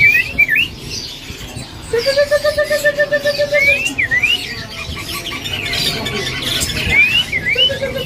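Several caged songbirds calling together: quick rising whistled notes repeated throughout, and a lower pulsed trill from about two to four seconds in and again near the end.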